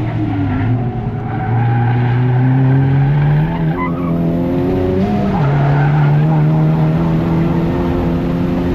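Honda Civic Type R's turbocharged K20C1 four-cylinder running hard on track. Its pitch holds fairly steady, then about five seconds in it makes a quick blip and settles at higher revs, as with a downshift.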